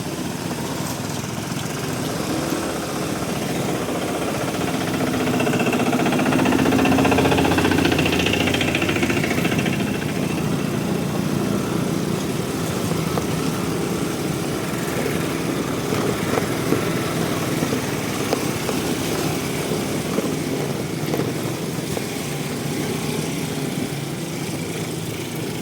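Aprilia SR 160 scooter's single-cylinder engine running, growing louder for a few seconds about six seconds in, then running steadily.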